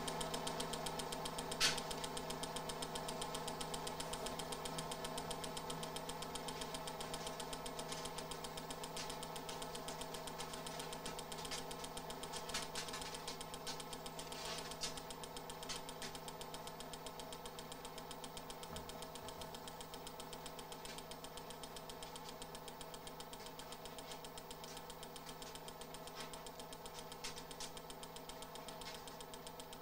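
Experimental noise soundtrack: a steady, machine-like drone with a fast even pulse and a low hum, slowly fading. A sharp click comes about two seconds in.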